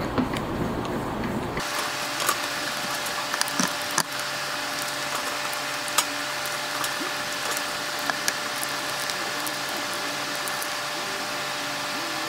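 Cloth rubbing hard on a motorcycle helmet's shell for about the first second and a half, then a steady mechanical hum and hiss with scattered light clicks and taps as the helmet is handled.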